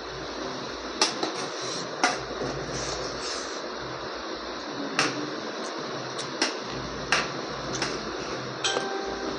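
Light clinks and taps of a plate and utensils during eating, about eight sharp ticks at irregular intervals over a steady background hiss. One clink near the end rings briefly.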